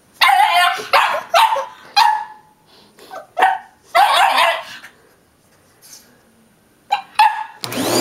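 Boston terrier barking at a vacuum cleaner in a series of sharp barks with short pauses between them. Near the end the vacuum cleaner's motor starts up and runs steadily.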